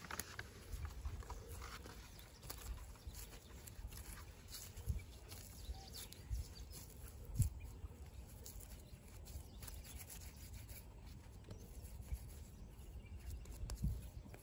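Hands pressing and rubbing damp clay on a rock: faint rubbing with scattered soft knocks, over a low, unsteady rumble.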